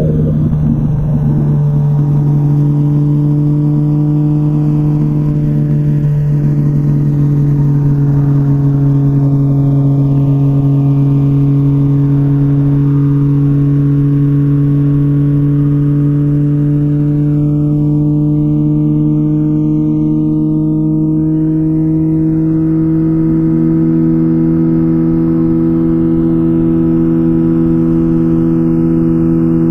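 2004 Honda CBR1000RR Fireblade's inline-four running through a Jardine titanium exhaust at a steady cruise, its engine note holding nearly constant and drifting slightly higher in pitch over the second half.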